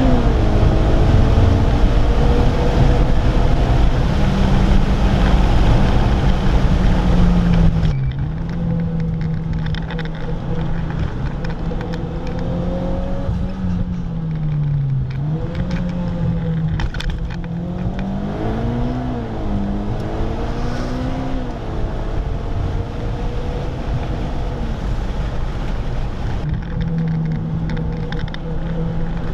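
A car's engine heard from inside the cabin while lapping a race track, with heavy wind and road noise. About eight seconds in the noise drops and the engine settles to a lighter, steady run, its pitch dipping and climbing a few times.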